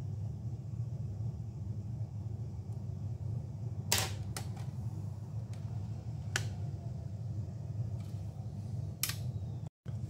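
Four or so sharp plastic clicks and taps as a laptop's small power-button board is handled and fitted back into its plastic chassis, the loudest about four seconds in, over a low steady hum.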